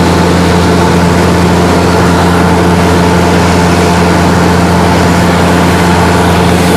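A light aircraft's piston engine and propeller droning steadily, heard loud from inside the cabin, with a strong low hum that holds at one pitch.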